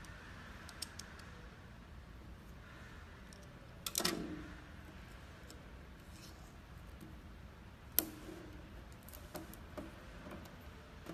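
Small plastic clicks and knocks as a HIFU cartridge and its plug are handled and set down on a hard surface, with a louder knock about four seconds in and a sharp click about eight seconds in.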